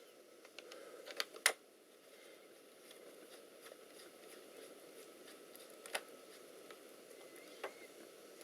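A few faint, sharp clicks and taps of a screwdriver and small screws on a laptop's internals as screws are fitted, over a low steady hiss.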